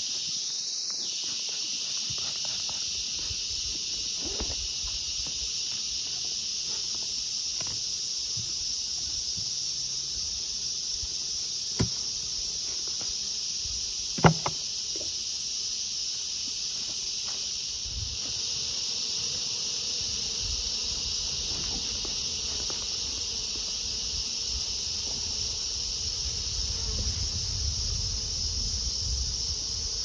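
Steady high-pitched drone of insects throughout, with two sharp knocks from the beehive being opened, about twelve and fourteen seconds in, the second louder.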